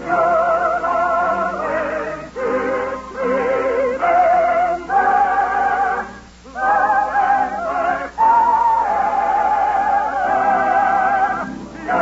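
Operetta singing: a solo voice holds long notes with a wide vibrato over an orchestra, breaking off briefly about six seconds in.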